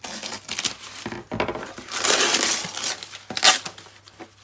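Scissors snipping through gift wrap and tape, then wrapping paper crinkling and rustling as it is pulled off a box, with a sharp crackle about three and a half seconds in.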